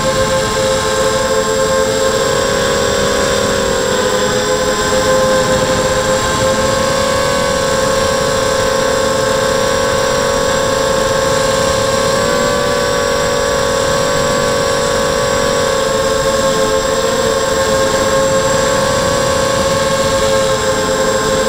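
Quadcopter's brushless motors and propellers whining steadily, recorded from its onboard camera, with a rushing hiss of air over the microphone. The several whining tones waver slightly as the throttle changes, dipping a couple of seconds in and shifting again about halfway through.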